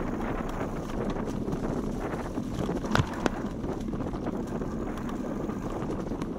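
Wind rushing over the microphone of a camera riding on a bicycle, over the steady rolling noise of tyres on a dirt forest trail. Two sharp knocks about three seconds in, like the bike rattling over a bump or twig.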